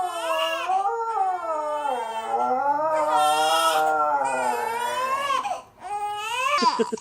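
Baby crying in long, drawn-out wails whose pitch wavers up and down, with a short break for breath near the end before the crying starts again.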